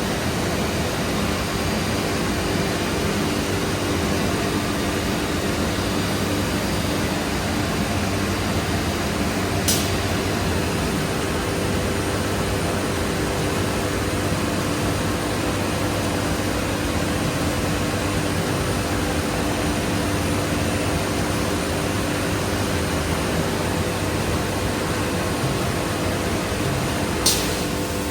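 Biesse Rover K CNC router running steadily: a dense, even machine noise with a low hum. Two brief high ticks come through, about ten seconds in and again near the end.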